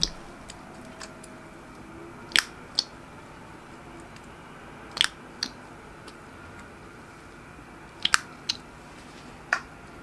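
White glossy glue slime giving short crisp pops and clicks as a gloved finger presses into it, mostly in pairs every two to three seconds, over a low steady hiss.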